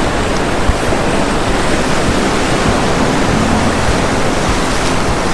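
Ocean surf washing over and around shoreline rocks: a loud, even rush of moving water.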